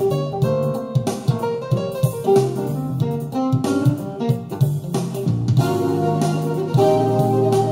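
Guitar-led instrumental music played back through a car-audio system, a head unit driving a Celestra RA275 amplifier into a pair of speakers.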